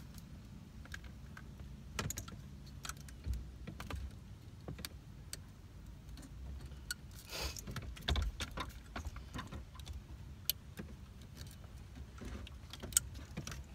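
Plastic wiring-harness connectors being unlatched and worked loose from the back of a factory CD/tape car stereo head unit: scattered small clicks and rattles, with a brief rustle about seven and a half seconds in.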